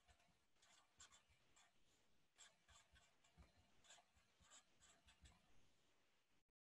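Very faint pen strokes on paper: a felt-tip marker drawing a picto in short, irregular scratches.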